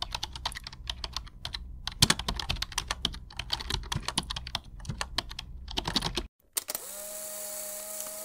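Computer keyboard typing, rapid irregular key clicks for about six seconds, then after a brief break a steady hissing tone to the end.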